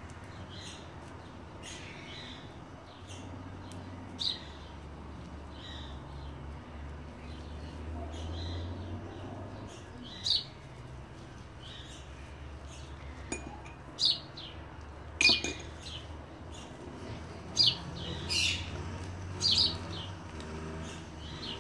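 Birds chirping: short, separate high chirps at irregular intervals, over a low steady hum, with a sharp click about fifteen seconds in.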